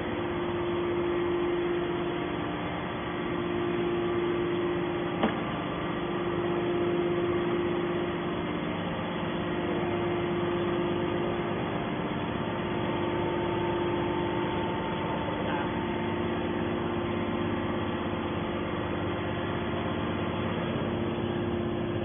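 Steady mechanical hum with a constant drone from a 250-ton hydraulic scrap metal baler's power unit (electric motor and hydraulic pump) running between press cycles. A single sharp click comes about five seconds in.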